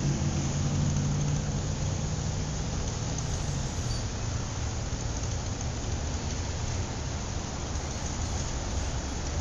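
A steady low mechanical hum over an even hiss, like a running vehicle.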